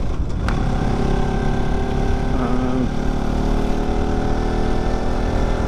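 Bajaj Pulsar NS200 motorcycle's single-cylinder engine running at a steady riding speed, its note dipping slightly about three seconds in.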